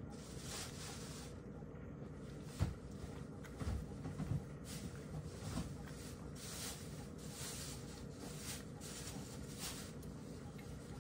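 Domestic cat eating wet food from a ceramic bowl: irregular wet chewing and licking sounds, with a few dull knocks in the first half.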